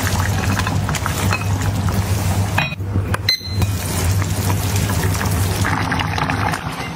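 Stew simmering and bubbling in an enamelled cast-iron pot, with light clinks, over a steady low hum. The sound drops out briefly twice about three seconds in.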